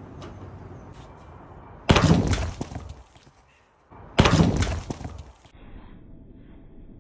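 A heavy lintel dropped from the top of a barn's gable wall crashing onto the ground and breaking, heard as two loud crashes about two seconds apart.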